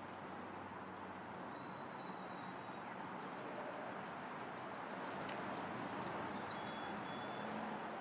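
Steady outdoor background hiss and hum, with faint ticks of a house sparrow pecking seed off a wooden plank. Two faint, thin, high bird whistles come through, one about two seconds in and one about seven seconds in.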